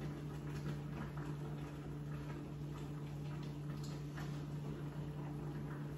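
Faint scattered ticks and light taps of eggs frying in a pan and a spatula stirring them, over a steady low hum.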